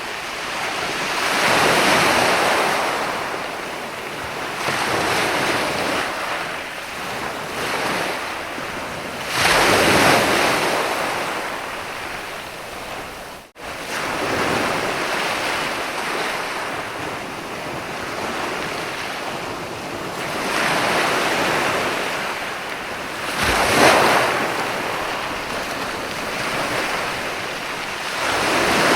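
Sea waves breaking and washing up a sandy beach, a steady rush of surf that swells and fades every few seconds. The biggest waves come about 10 s and 24 s in, with a momentary break in the sound about halfway.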